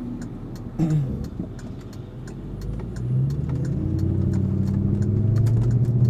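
Audi A6 4.2 V8 with its rear muffler deleted, heard from inside the cabin while driving; its exhaust note grows steadily louder from about three seconds in as the car pulls ahead. A brief sharp sound comes about a second in.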